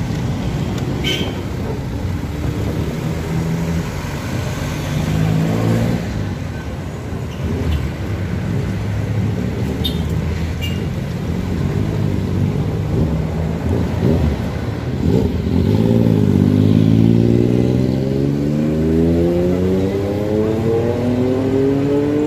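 Road traffic passing close by, vehicle engines running. From about two-thirds of the way in, one vehicle accelerates and its engine pitch climbs steadily.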